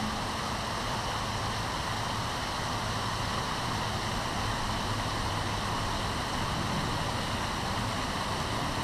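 Steady rush of river water flowing over rocks, an even hiss with no breaks.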